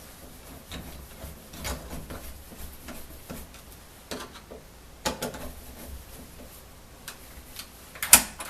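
Metal deadbolt parts clicking and knocking as they are fitted into the door and worked, with a few sharper clicks near the end.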